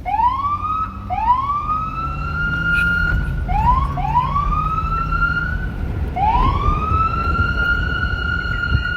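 Police siren winding up again and again: five rising whoops, each climbing in pitch and levelling off into a steady tone, the last one held, over a low rumble.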